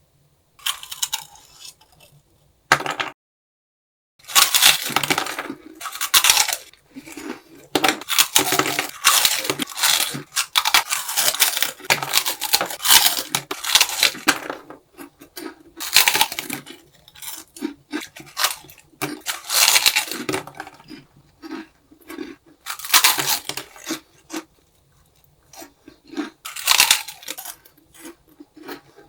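Close-up crunching and chewing of a crispy snack in irregular bursts, with clinks and crackles mixed in.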